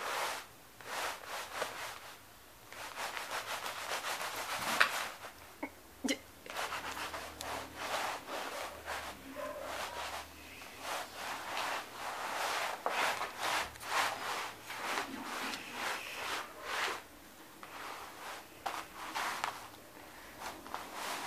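Repeated scratching and rubbing on carpet or rug fabric, in many short, irregular strokes with one sharper, louder one about five seconds in.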